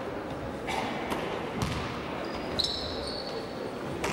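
Basketball bouncing and thudding on a wooden gym floor, a few sharp knocks that echo in the hall, with a short high squeak a little past halfway.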